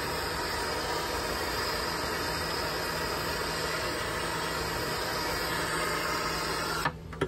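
Handheld gas torch burning with a steady hiss while heating a copper fitting for soft soldering. The hiss stops abruptly near the end, followed by a sharp click.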